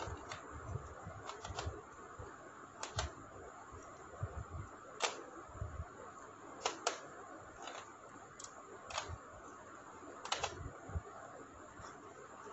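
Irregular sharp clicks and taps, about a dozen, spaced unevenly: bead-chain chromosome model pieces being picked up, set down and pressed onto a whiteboard by hand, over a low handling rumble.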